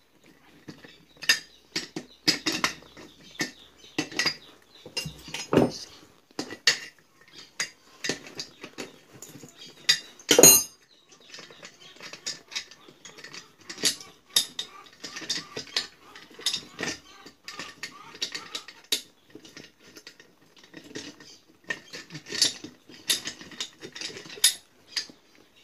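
Steel socket wrench clinking and knocking against the bolts and metal casing of an Anauger vibratory submersible pump as the housing bolts are undone: irregular metallic clicks, with one louder knock about ten seconds in.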